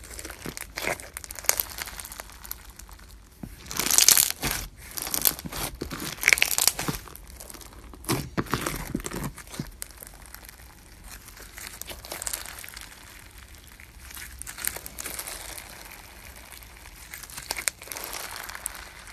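Hands squeezing and stretching crunchy bead-filled slime, giving irregular bursts of crackling and popping as the clear beads are pressed together. The crackling is loudest about four seconds in and again around six and eight seconds, quieter in between.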